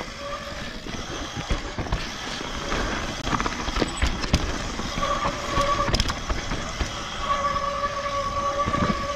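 Mountain bike rolling fast down a dirt and rock singletrack: tyre noise on loose dirt with a steady rumble and frequent rattles and knocks from the bike over rocks and roots. About halfway in, and again near the end, a steady whine rises above it.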